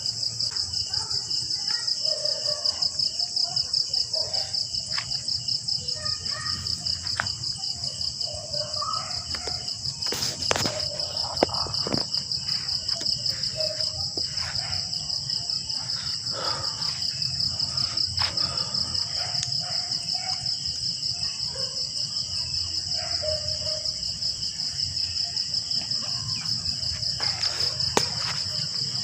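Insects trilling in a steady, high-pitched, rapidly pulsing chorus, with scattered bird chirps over it and a few sharp clicks, around ten, twelve and twenty-eight seconds in.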